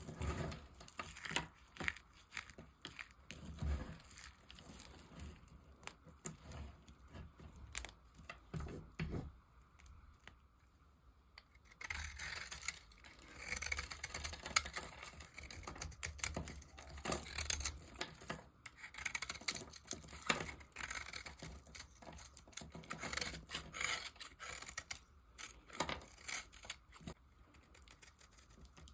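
Knife cutting and carving dry bar soap: irregular crisp scrapes and crumbly crackles, thinning out briefly about a third of the way through, then coming thicker.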